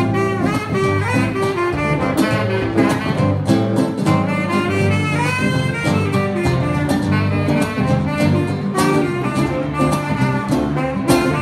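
Small jazz trio playing live: a saxophone carries a moving melody over guitar and bass.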